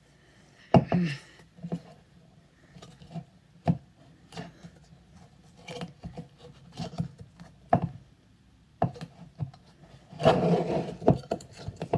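Handling noises: a string of irregular sharp clicks and knocks, the loudest a little under a second in, and a scraping rub lasting about a second near the end.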